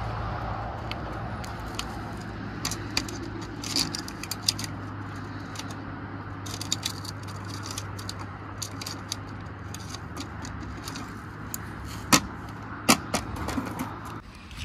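Aluminium folding camp table being unfolded and set up: light metal rattles and clicks as the top and legs are handled, then two sharp knocks near the end as it is set in place, over a steady low hum.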